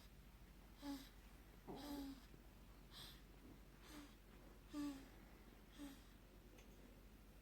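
Baby snoring faintly: short, squeaky, nasal snores about once a second.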